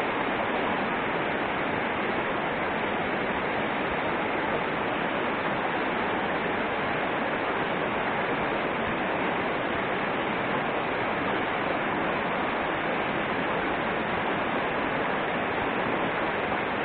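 A small mountain river rushing steadily over a rocky riffle and low cascade, a constant even splashing roar of white water.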